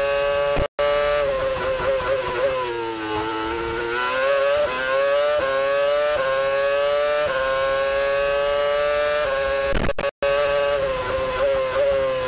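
Onboard engine sound of the 2010 Renault R30 Formula One car's 2.4-litre V8 at high revs on a flying qualifying lap. The revs drop about three seconds in and again near the end, then climb back as it accelerates. The sound cuts out briefly twice.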